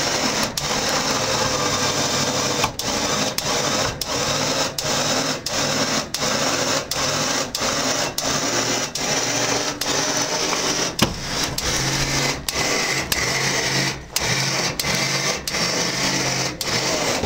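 Electric winch running steadily as it hauls a Polaris snowmobile up a ramp into a pickup bed, with a regular clack about every 0.7 s; the sound stops abruptly at the end.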